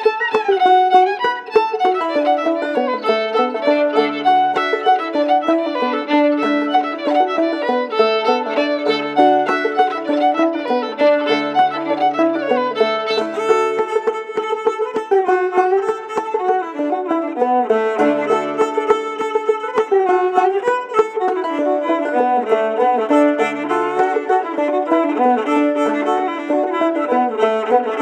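Fiddle and clawhammer banjo playing an old-time fiddle tune together, with the fiddle carrying the bowed melody over the banjo.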